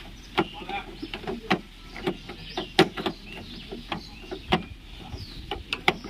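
Irregular sharp metallic clicks and taps, about a dozen, as a screwdriver works the tailgate latch of a Maruti Suzuki Zen Estilo, trying to trip the latch open.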